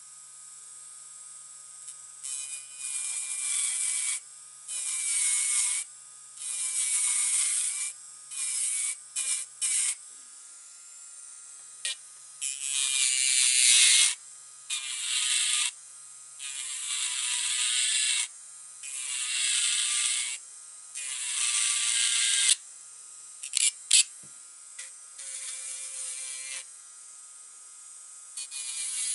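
Electric nail drill running with a steady whine, its bit grinding a nail tip in repeated bursts of a second or two, each a loud high grinding hiss. A couple of sharp clicks come late on.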